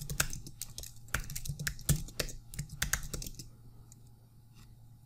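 Typing on a computer keyboard: a quick run of key clicks while a login password and the 'show image version' command are entered. The typing stops about three and a half seconds in.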